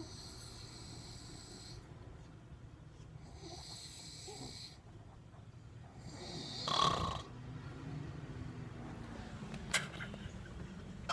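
A man snoring in his sleep, with slow repeated rasping breaths and one much louder snore about two thirds of the way through.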